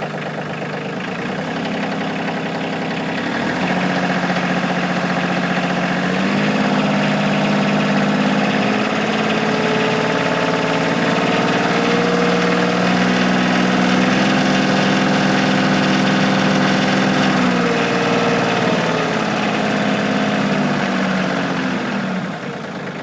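Kioti CK2610 compact tractor's three-cylinder diesel engine running, its speed and loudness stepping up about three and a half seconds in, shifting a few times, then dropping back near the end.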